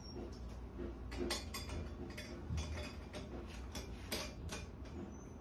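Light, irregular metallic clicks and ticks, about two a second, from a stainless tri-clover clamp being closed and tightened around a fitting.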